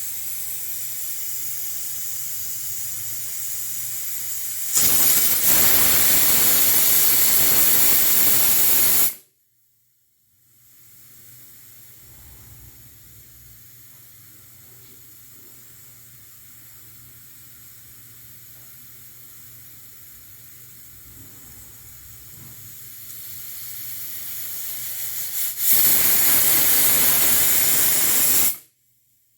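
Pressure cooker venting steam: a steady hiss breaks into a loud blast of steam through the whistle for about four seconds, then cuts off abruptly. After a moment of silence the hiss starts again and slowly grows louder until a second loud blast near the end, which also stops sharply.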